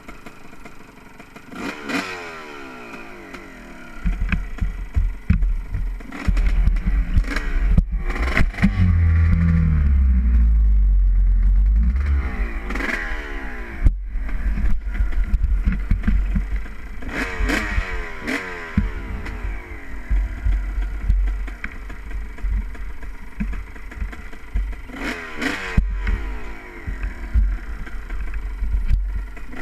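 Honda CR250R's 250 cc two-stroke single-cylinder engine being ridden, its revs rising and falling again and again. A heavy low rumble joins it about four seconds in.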